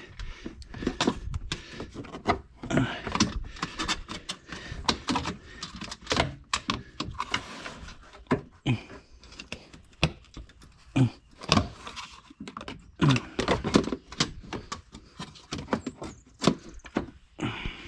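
Plastic cowl panel being worked loose by hand: a string of irregular clicks, knocks and plastic rattles.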